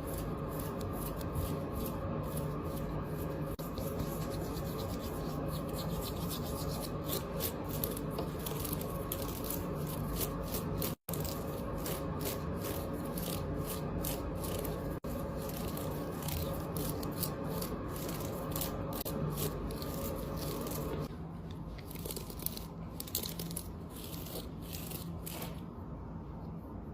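Bangles and rings rubbing and clicking against each other in a dense run of small clicks over a steady low hum. There is a split-second gap about eleven seconds in, and the background thins out near the end.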